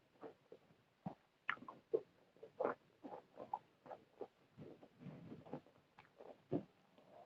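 Close-miked chewing: a person eating fried tempeh and omelette with rice, a series of short irregular wet mouth sounds, several a second.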